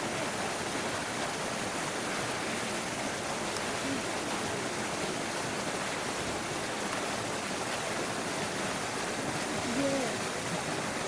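Steady rushing of running water, with faint voices in the background.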